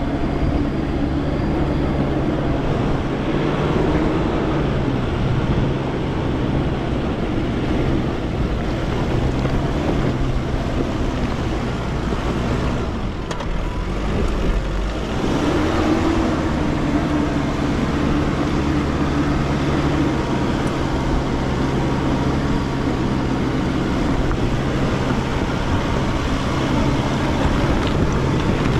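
Nissan Pathfinder R51 engine running steadily as the 4x4 crawls a rocky mountain track, over a low rumble. About halfway through the engine note drops away for a couple of seconds while the rumble rises, then picks up again.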